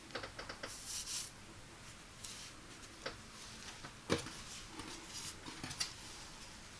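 A polyester golf polo being handled by hand, its fabric rustling and swishing as it is spread out and smoothed on a tabletop. Small ticks of hands brushing the fabric and surface are scattered through it, with a sharper soft thump about four seconds in.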